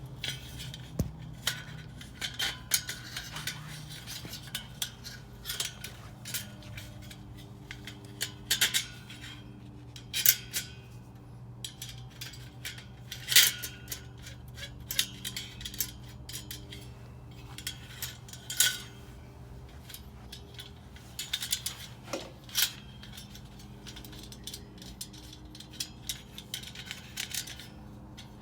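Parts of a dish drying rack clicking and clattering as they are handled and fitted together, in irregular light knocks with a sharper one about halfway through, over a low steady hum.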